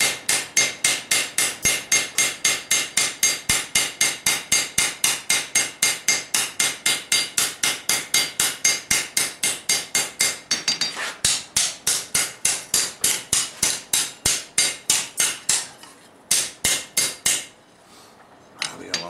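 Hand hammer striking a red-hot steel froe blade on an anvil, ringing blows in a fast steady rhythm of about four a second, forging the blade's wedge bevel. The hammering breaks briefly about ten seconds in, then stops after a few last blows near the end.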